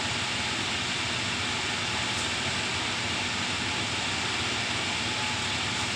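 Steady background hum with an even hiss, of a running ventilation fan or air-conditioning unit.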